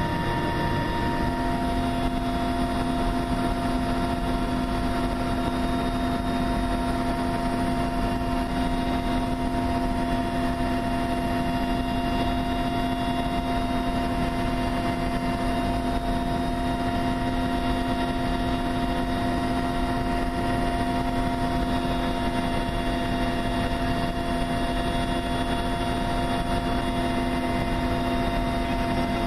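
Steady drone of an aircraft in flight heard from inside the cabin: an even engine hum with several held tones over a constant rush of noise.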